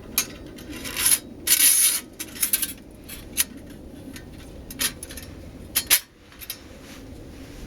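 Thin stainless-steel stove panels and fittings being handled: a string of sharp metal clinks, with a longer scrape from about a second and a half to two seconds in.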